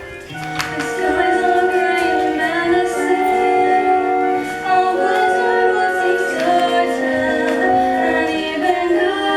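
Musical-theatre song: a voice singing long held notes over instrumental accompaniment.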